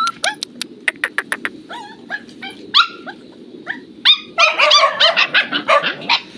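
Several recently weaned puppies yelping and whimpering in quick, high-pitched cries, thickest toward the end. A run of sharp clicks sounds about a second in.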